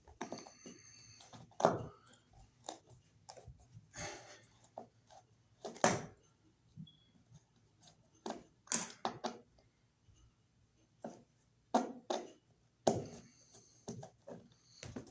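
Hand work on an electrical outlet box being taken off the wall: irregular knocks, clicks and short scrapes of tools, screws and plastic or metal parts being handled, with gaps between.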